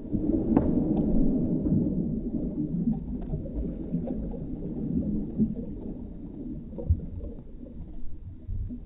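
A boy plunging into a swimming pool, heard underwater through a phone's waterproof case and slowed down in slow motion: a sudden muffled splash, then a deep, muffled rumble of bubbles that slowly fades.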